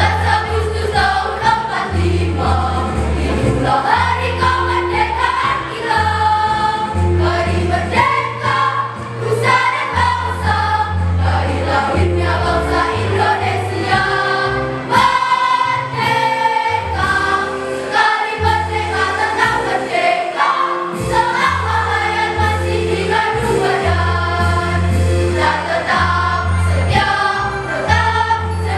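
A school choir singing in parts over an accompaniment with a steady low bass line that changes note every couple of seconds.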